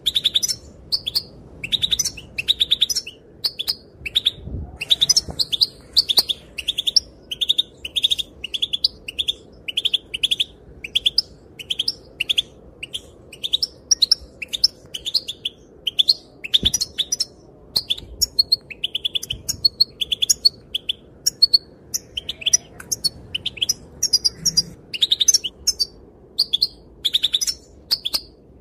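Female European goldfinch calling: short, high chirps repeated about once or twice a second without a break.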